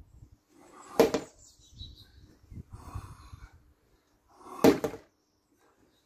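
Wooden bokken striking a tyre on a wooden stand twice: two sharp knocks, about a second in and again nearly four seconds later.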